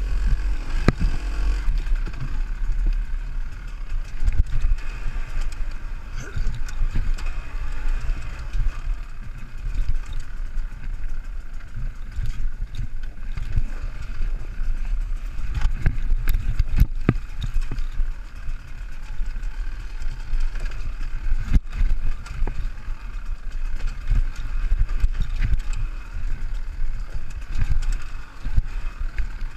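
Enduro motorcycle ridden slowly along a rough dirt and rock trail, its engine running at low revs under a steady low rumble. A few sharp knocks come from the bike jolting over rocks, about halfway through and again a few seconds later.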